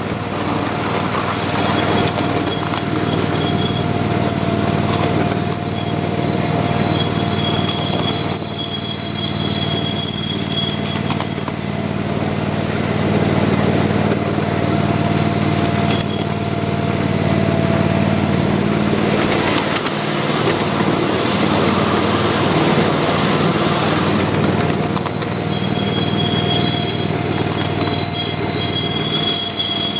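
Miniature ride-on train running along its track: a steady motor drone with the rumble of the cars on the rails. High wheel squeal comes in on the curves, a few seconds in and again near the end.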